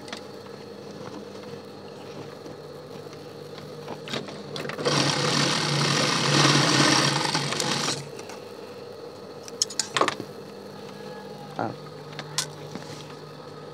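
Sewing machine running a line of stitches through a non-woven fabric bag for about three seconds in the middle, over a steady low hum, with a few light clicks from handling the fabric.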